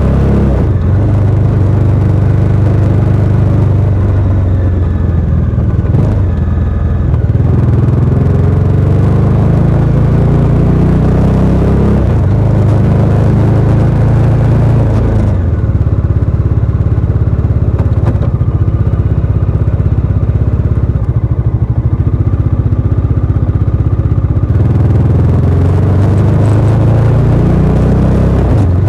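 Bajaj Dominar 400's single-cylinder engine through its stock exhaust while riding: the engine note rises under throttle and drops back at each gear change, several times over. Midway it runs at a steadier, softer note for several seconds, then pulls and rises again near the end.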